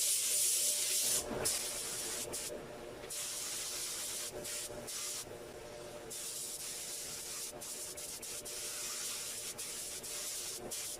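Paint spray gun hissing as it sprays base coat, in passes broken by short pauses where the trigger is let off.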